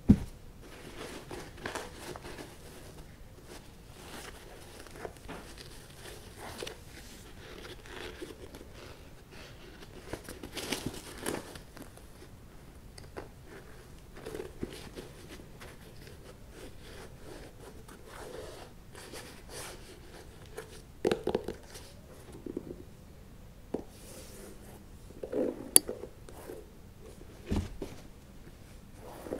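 ASMR sneaker tapping: fingers tapping, scratching and rustling on the leather upper and laces of a Nike Dunk High, a string of scattered soft taps and rustles with a few sharper knocks, the sharpest right at the start.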